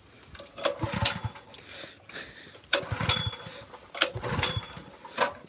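Recoil starter of a DeWalt gas pressure washer pulled three times, each pull cranking the engine in a quick run of pulses without it catching, because the fuel tank is empty.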